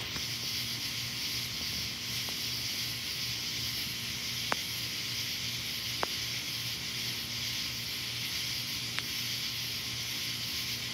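Steady high-pitched hiss of night-time outdoor ambience, with a few faint ticks scattered through it.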